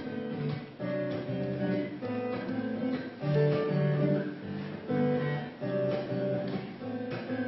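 Acoustic guitar strumming chords in a steady rhythm, played live as the instrumental introduction to a song.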